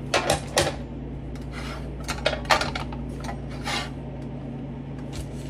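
Metal nonstick pans clattering on an electric coil stovetop: a flat griddle pan is handled and set down on a burner, giving a string of knocks and scrapes over about the first four seconds.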